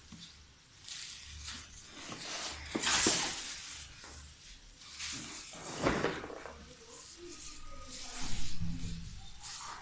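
Large cardboard box being handled and shifted on a stone floor: rustling and rubbing of cardboard under the hands, with louder scrapes about three seconds in and again near six seconds.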